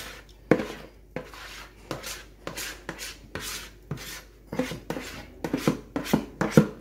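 Spatula scraping thick sweet potato pudding batter out of a mixing bowl into a metal pot: a run of rasping strokes about every half second, quicker and with sharper knocks against the rim near the end.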